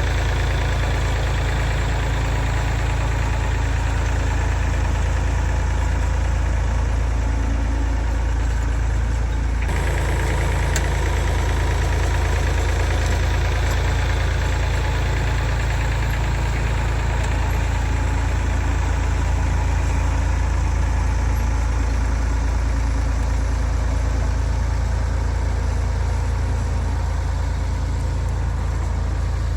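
Farm tractor engine running steadily while dragging a rear scrape blade to level loose dirt.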